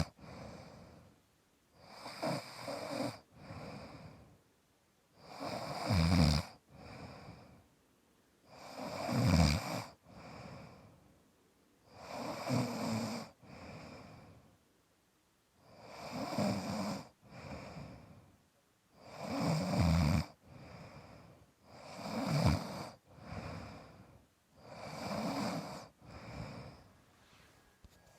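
Very loud snoring in a steady rhythm: about eight long, rasping snores, one every three seconds or so, each followed by a softer breath out.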